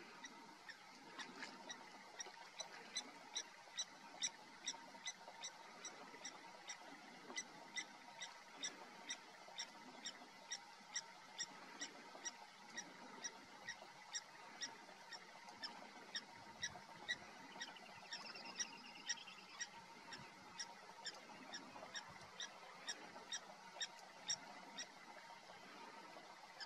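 Short, high-pitched pip calls from a small animal, repeated steadily a little over two a second, some louder than others, with one brief squeaky glide about two-thirds of the way through.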